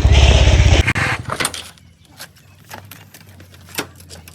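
An engine runs loudly with a fast pulsing beat, then cuts off sharply less than a second in. After it come scattered knocks and clicks over a faint, steady low hum.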